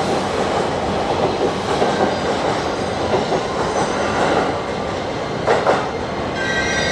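Train running along the station tracks: a steady rumble of wheels on rail with clattering over the joints, and a brief louder burst about five and a half seconds in.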